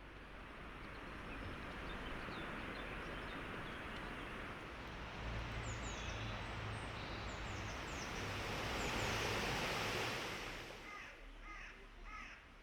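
Outdoor ambience: a steady rushing noise that swells a little and then dies down near the end, with small birds chirping in short, quick, falling notes.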